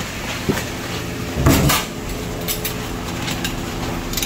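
Spoon scraping and knocking against a cooking pot as chicken is stirred while it browns in caramelised sugar, over a steady hiss; a few light clicks, with the loudest scrape about a second and a half in.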